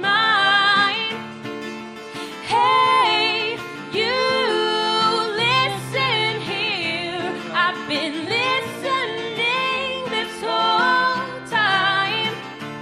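A song with a female lead singer over guitar-led backing, in a country style.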